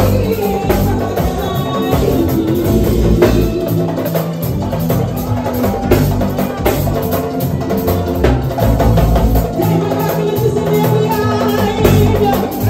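Live mbalax music: a woman sings through a microphone over a band with drums keeping a steady beat.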